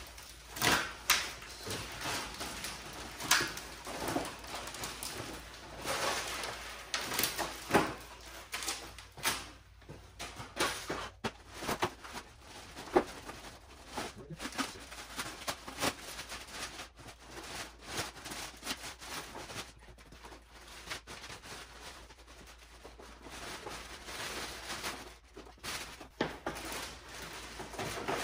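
Clear plastic wrapping rustling and crinkling as it is pulled off a new go-kart, with irregular knocks and bumps from the kart and its cardboard box being shifted.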